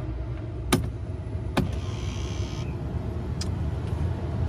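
A vehicle's engine runs with a steady low hum, broken by a few sharp clicks and a brief hiss.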